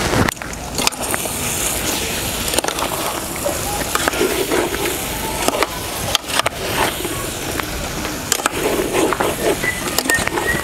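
A metal spoon stirring chopped okra in an aluminium pot, scraping and knocking against the pot in irregular clicks over a steady hiss.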